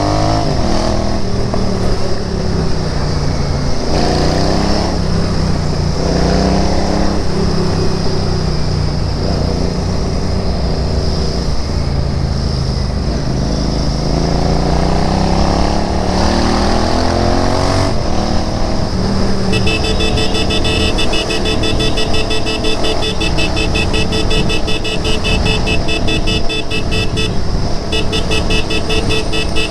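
Royal Enfield Interceptor 650's parallel-twin engine under way, its pitch rising and falling several times as it revs through the gears and eases off. About two-thirds in the engine settles steady while a rapidly pulsing high-pitched tone joins, breaking off briefly near the end.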